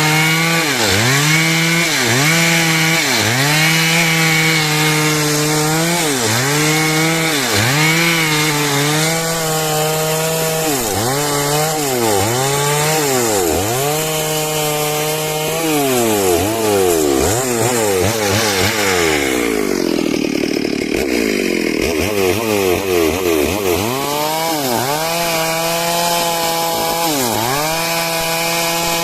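Stihl MS 382 two-stroke chainsaw cutting wood under load. Its engine note dips and recovers about once a second. Around the middle it slows to a low note for a couple of seconds, then revs back up and carries on cutting.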